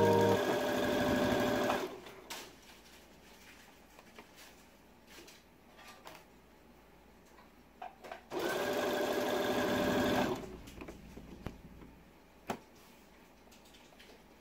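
Brother sewing machine running and stitching in two short bursts: one at the very start, about a second and a half long, and another about eight seconds in, about two seconds long. A few faint clicks fall in the quiet between them.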